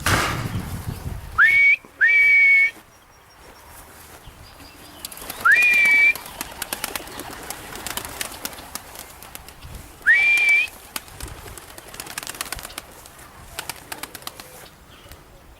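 Four loud whistle blasts, each sliding up in pitch and then held briefly on a steady two-note tone. The first two come close together, and the other two follow several seconds apart.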